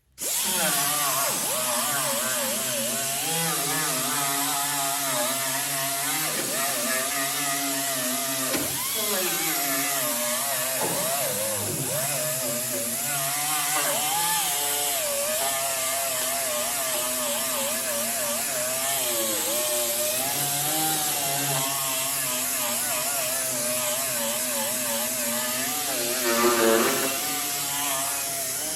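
Handheld power grinder with a cut-off wheel cutting sheet-steel patch-panel metal. Its whine wavers in pitch as the wheel is loaded and eased. It starts suddenly and runs on continuously, getting briefly louder near the end.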